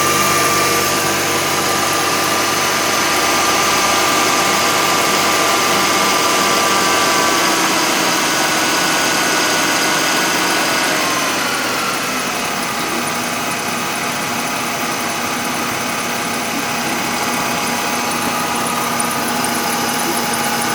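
Mercedes-Benz M272 V6 engine idling cold, with a thin whistle over it whose pitch shifts lower about halfway through. It is the whistle this engine makes at low revs before it warms up, its cause unknown to the owner.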